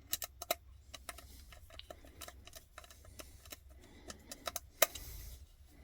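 Irregular light clicks and taps of metal hand tools being handled, in a cluster at the start and another about four to five seconds in.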